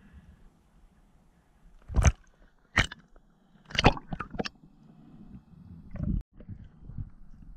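Sharp knocks and clicks underwater, five of them over about two and a half seconds, then a duller thump about six seconds in that cuts off suddenly.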